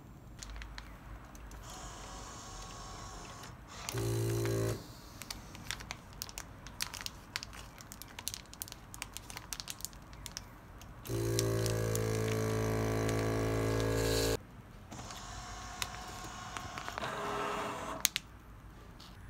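Clear plastic vacuum bags crinkling and rustling as food is slid in and the bag is handled. Twice the Asahi ASV-320D nozzle-type vacuum sealer's pump runs with a steady hum while drawing air from a bag: briefly about four seconds in, and for about three seconds from about eleven seconds in.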